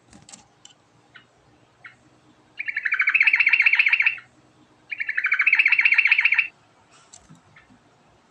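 Sooty-headed bulbul (trucuk) singing: two loud, rapid trills of fast repeated notes, each about a second and a half long, with a few short chirps before and after.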